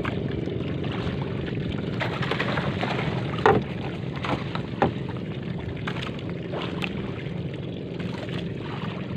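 A boat's engine running steadily at sea, with two sharp knocks, the louder about three and a half seconds in and another about a second later.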